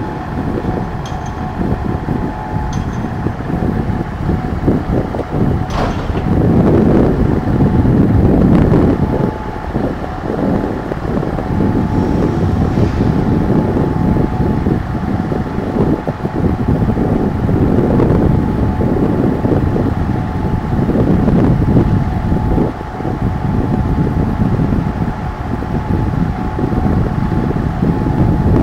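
Ise Railway diesel railcar's engine idling at a standstill, a steady low rumble that swells now and then, with a faint steady whine over it. A sharp click about six seconds in.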